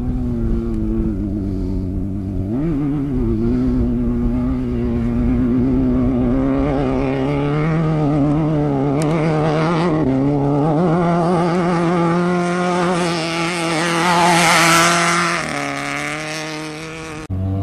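Off-road race vehicle's engine revving hard and unevenly as it works through deep silt, its pitch wavering and climbing as it comes closer. It is loudest about fourteen seconds in, drops in pitch as it goes by, and the sound cuts off abruptly near the end.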